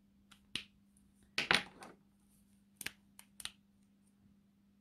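Copic alcohol markers being handled: a string of sharp hard-plastic clicks and clacks, the loudest a short clatter about one and a half seconds in.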